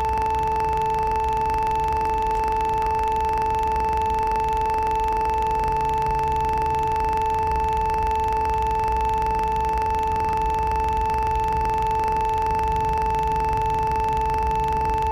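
Steady, unbroken electronic drone on the note A, sounded in two octaves with the upper one loudest, from devices tuned to A. A low rumble runs underneath.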